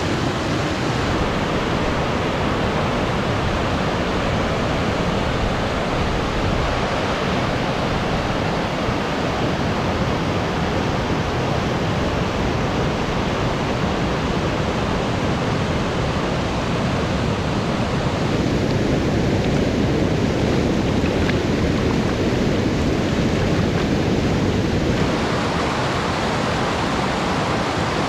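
River water rushing steadily, a dense continuous roar of flowing water. It grows a little louder and deeper for several seconds past the middle.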